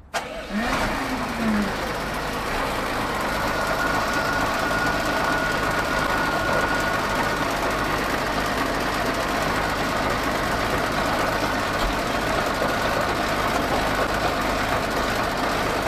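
SDLG LG936L wheel loader's diesel engine starting just after the start and then running steadily at idle.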